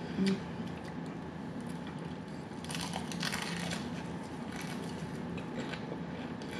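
Crisp crust of spicy fried chicken crunching as it is bitten and chewed close to the microphone, loudest in a burst of crackly crunches about three seconds in.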